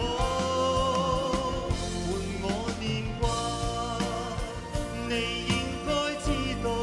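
A male vocalist sings a Cantonese pop ballad live with full band backing, holding long sung notes over steady chords and bass.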